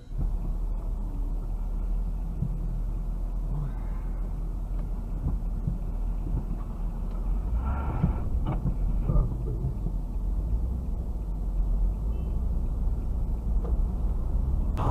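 Steady low rumble of a car's engine and road noise as picked up by a dashcam mic inside the cabin, with a short, brighter burst of sound about eight seconds in.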